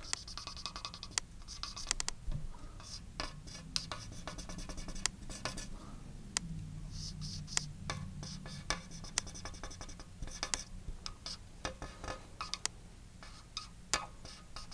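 A pen scratching in short strokes with small taps as a rectifier diagram is drawn, over a faint low hum.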